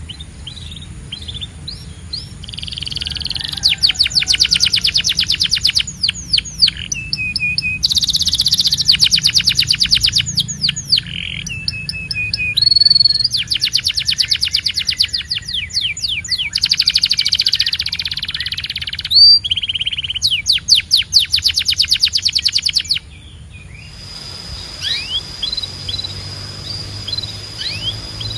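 Domestic canary singing: a series of very fast trills, each lasting a couple of seconds, linked by short whistled notes and pitch slides. The loud song cuts off suddenly near the end, leaving only fainter chirps.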